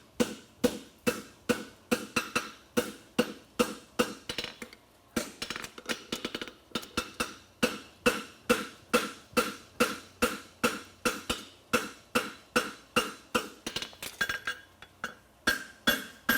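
Hand hammer striking a thick steel horseshoe bar on the horn of an anvil, shaping the heel and quarter of a double-caulked hind shoe. The blows fall steadily at about three a second, each with a short metallic ring, with a brief pause about four seconds in.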